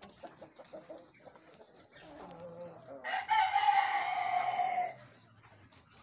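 Light Brahma rooster crowing once. The crow starts low about two seconds in, turns loud a second later, and holds with a slight fall in pitch for about two seconds before stopping.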